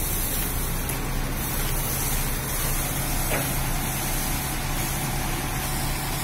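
Heavy truck's diesel engine running steadily, with a constant hiss.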